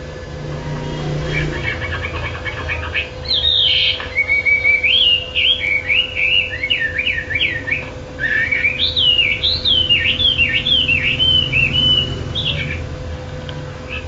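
Caged wambi songbird singing a long, unbroken run of rapid warbling phrases that sweep up and down in pitch, after a few seconds of quieter chattering notes. A faint steady hum lies underneath.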